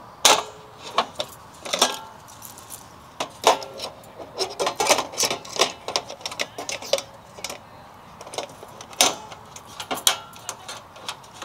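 Irregular clicks and clanks, some with a short metallic ring, from handling an outdoor cooking stove while trying to light it.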